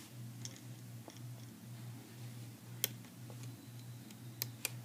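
Faint small clicks and ticks of a metal-tipped hook and rubber bands against the plastic pegs of a Rainbow Loom as bands are stretched from peg to peg, with a sharper click about three seconds in and two more close together near the end, over a low steady hum.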